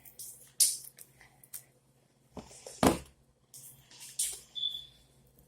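Homemade slime of shaving cream, glue and detergent being kneaded and pulled by hand to test its stickiness: scattered short squishing and handling noises, with one louder one about three seconds in.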